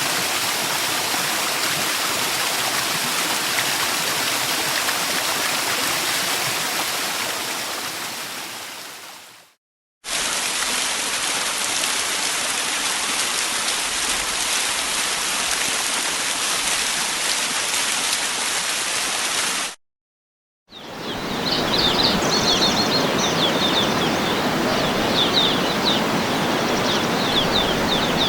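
Steady rushing of a waterfall that fades out; after a brief silence a second stretch of rushing water starts and stops abruptly. After another second of silence, steady rushing water returns with small birds chirping rapidly over it.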